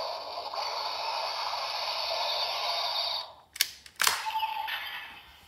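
GUTS Sparklence toy playing a sustained electronic sound effect through its small speaker, which stops about three seconds in. Two sharp plastic clicks half a second apart follow as the toy is folded into its gun shape, then a further sound effect fades out.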